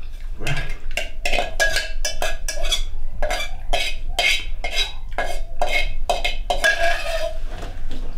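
Food being scraped and scooped in a stainless steel bowl, about three quick strokes a second, the bowl ringing after each one, with a longer scrape near the end.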